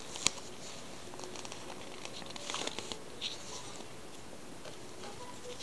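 Faint rustling of a glossy magazine's pages being handled, with a single sharp click just after the start.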